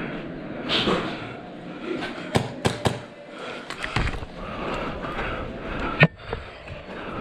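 A person breathing heavily close to the microphone. Several sharp cracks and knocks come between about two and a half and four seconds in, and the loudest single crack comes about six seconds in.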